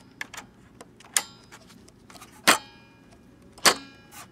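Sharp metallic clicks and clacks, about four spaced roughly a second apart, from the small reel-to-reel tape recorder's lever and head mechanism being handled.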